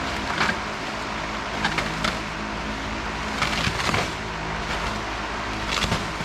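A steady low mechanical hum runs underneath. Over it come several short clusters of rustling and clatter: lift parts and packaging being handled during unpacking, loudest around four seconds and near six seconds in.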